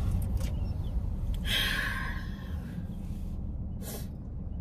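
A woman breathes out long and audibly, like a sigh, about a second and a half in, then gives a short sniff near the end, over the steady low rumble of a car interior.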